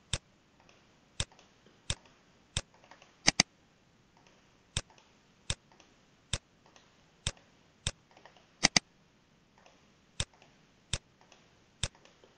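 Computer mouse clicking: a dozen or so sharp single clicks, under a second apart, with two quick double-clicks, one about three seconds in and one about nine seconds in.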